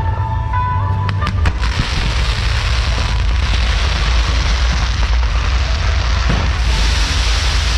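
Fireworks going off over music: a few sharp cracks in the first second and a half, then a continuous dense crackling hiss of fireworks over a heavy low rumble.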